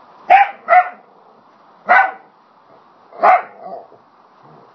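Pet dog barking at a small porcelain puppy figurine: four short barks, two in quick succession, then one about two seconds in and another a little past three seconds, followed by a softer bark.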